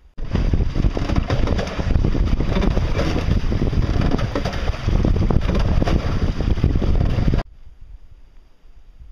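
Boat's outboard motor running under way, with water churning at the propeller and heavy wind buffeting the microphone. The loud noise stops abruptly about seven seconds in, leaving only a faint low murmur.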